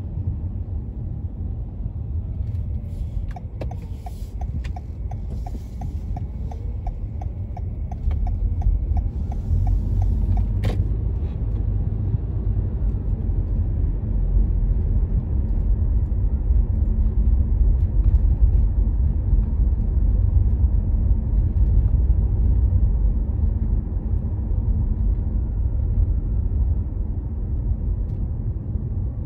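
Steady low rumble of a car driving: road and engine noise. From about three to ten seconds in, a run of even ticks, roughly three a second, ends in a sharp click.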